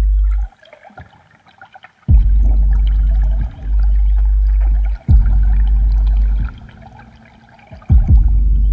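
Ambient electronic music: a deep bass drone that cuts out and comes back three times, each return starting with a sharp low thud, over a watery, gurgling texture.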